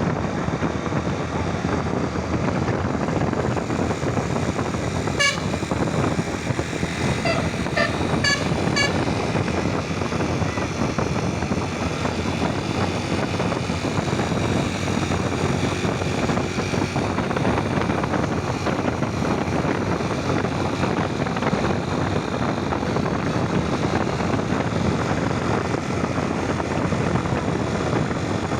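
Steady roar of passing heavy traffic, with short bursts of a bus's multi-tone telolet horn: a few notes at changing pitch about five seconds in, then a quick run of notes around seven to nine seconds.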